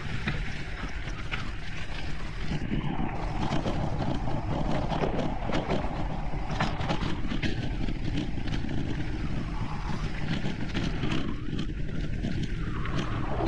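Mountain bike descending a trail: a steady rumble of wind and tyre noise over rough ground, with frequent clicks and rattles from the bike.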